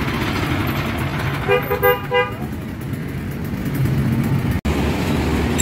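A vehicle horn giving three quick toots about a second and a half in, over the steady hum of street traffic.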